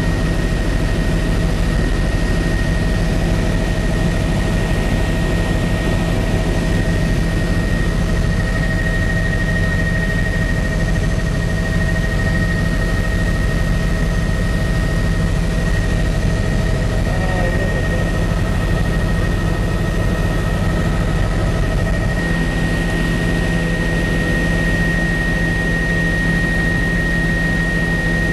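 Helicopter engine and rotor noise heard from inside the cabin in flight: a steady drone with a constant high whine.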